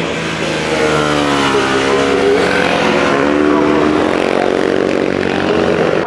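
Several vintage racing motorcycle engines running together, revving so that their pitches rise and fall over one another.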